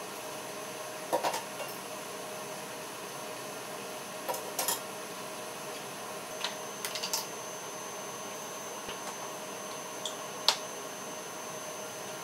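Dishes and utensils clinking and clattering against each other in a kitchen sink as they are washed by hand. A few short, sharp knocks come at irregular intervals, the loudest near the end, over a steady background hiss.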